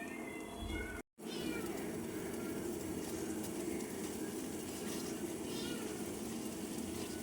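A cat meowing in short, high-pitched mews, over a steady low hum. The sound cuts out completely for a moment about a second in.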